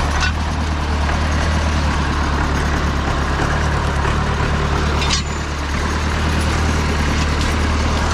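Farm tractor engine running steadily as the tractor drives through brush.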